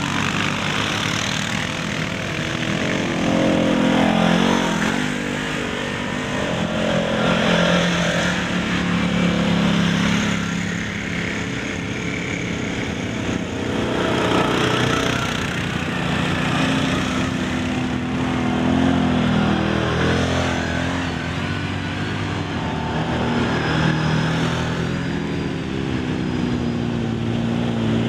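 A line of ATVs and side-by-side UTVs driving past one after another, their engines swelling and easing in loudness as each goes by, with the pitch gliding up and down as the riders work the throttle.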